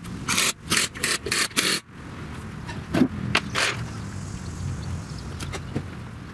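Pneumatic impact wrench fired in about six short bursts, tightening the wheel's lug nuts; it stops after about two seconds. A single loud knock follows about three seconds in, over a low steady rumble.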